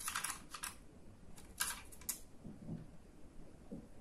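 Several light plastic clicks and taps as the battery-slot sliders and springs are pressed back into the plastic frame of an Opus BT-C3100 battery charger, bunched mostly in the first two seconds.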